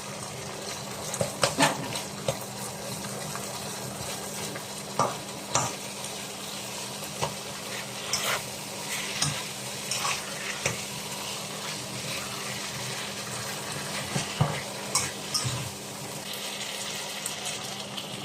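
Stir-fry sizzling steadily in hot oil in a pan with garlic just added, while a spatula stirs it, knocking and scraping against the pan every second or so.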